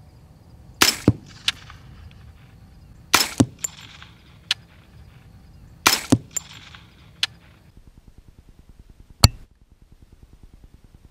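Three shots from a .45 carbine fitted with a Griffin Revolution 45 suppressor, firing subsonic +P+ hollow-point ammunition: each is a sharp suppressed report followed about a quarter second later by a second crack, with a few softer clicks between. Near the end, heard beside the hog, a single sharp crack of a bullet striking.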